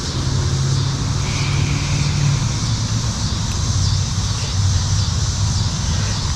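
A steady low engine hum, with a faint higher tone for about a second early on.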